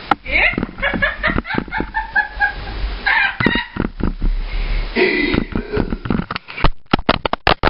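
A young woman laughing and squealing while being tickled and wrestled, with short bursts of giggling. Near the end comes a quick run of sharp knocks and rustles from the camera being handled.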